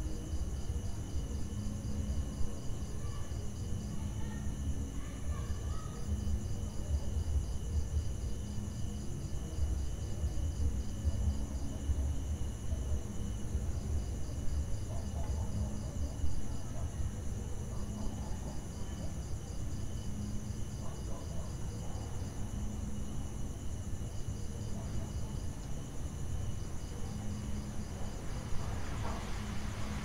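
Night insect chorus of crickets: steady high-pitched trills, with rapid chirping that comes in bouts of a few seconds with short breaks between them, over a steady low rumble.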